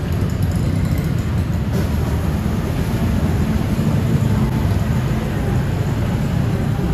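Steady low mechanical rumble, like a nearby engine running.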